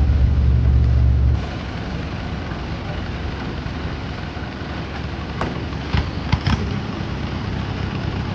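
A 4x4 jeep's engine running with a low rumble, cut off abruptly about a second and a half in. Outdoor hubbub and a few sharp knocks follow.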